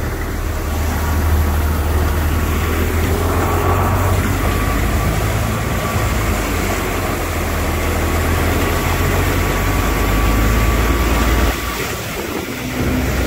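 JCB Fastrac tractor's engine running with a steady low drone as it wades through deep floodwater, with water rushing around the tractor and a thin steady whine over it for most of the time. The engine drone drops away near the end.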